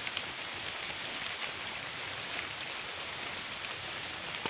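Light rain falling steadily, with a few faint ticks.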